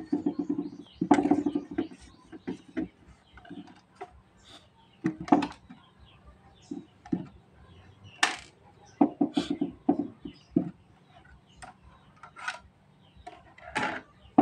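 Irregular clicks, taps and knocks of a metal screwdriver and plastic parts as the disc tray and loading mechanism of an opened DVD karaoke player are worked on, coming in short clusters.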